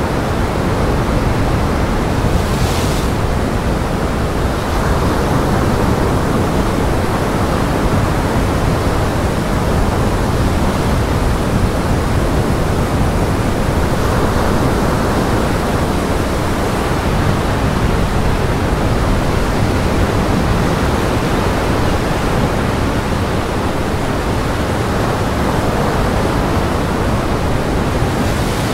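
Heavy surf and gale wind: a loud, steady rush of waves breaking against a rock breakwater, with a brief brighter hiss of spray about three seconds in.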